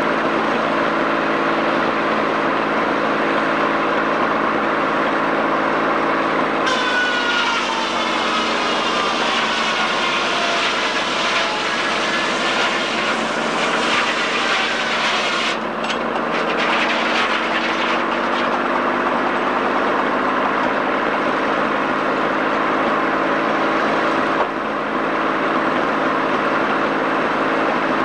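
Sawmill machinery running with a steady drone. About seven seconds in, the head saw bites into a log on the carriage: a harsh cutting noise whose whine drops in pitch as the saw takes the load. It stops suddenly a few seconds before the end, when the mill runs free again.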